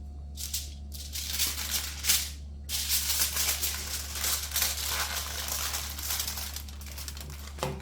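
Aluminium foil crinkling and rustling as it is folded and pressed around a whole fish, in uneven waves, with a steady low hum underneath.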